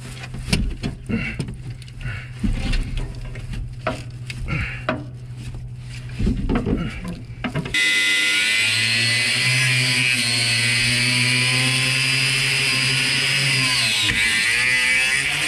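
Scattered metallic knocks and clicks of hand work on the steel RV step mechanism. About halfway through, a disc grinder with a cutoff wheel starts cutting steel and runs with a steady high whine. Its pitch sags briefly near the end, then recovers.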